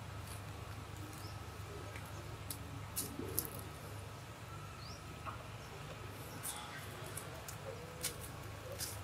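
Outdoor background with a steady low rumble, a few sharp clicks scattered through it and some faint, brief chirps.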